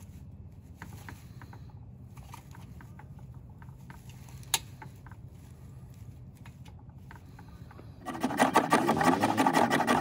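Soft crinkling and ticking of dry wood shavings being pressed into a metal hobo stove, with one sharp click about halfway. About eight seconds in, a much louder rapid, rhythmic rasping starts: a horseweed hand-drill spindle spun between the palms on a tulip poplar fireboard.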